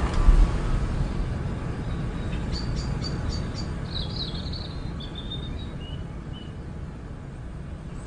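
Background ambience: a steady low rumble with a soft thump just after the start, and a short run of faint bird chirps in the middle.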